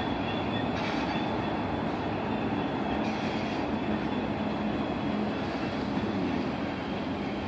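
Railcars of a CSX maintenance-of-way work train rolling past, with a steady, unbroken sound of wheels running on the rails.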